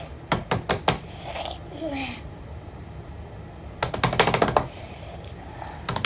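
Hands slapping and drumming on a wooden table: four quick slaps in the first second, then a fast flurry of taps about four seconds in. Between them come a child's breathy gasps and a short groan at the burn of a hot sauce.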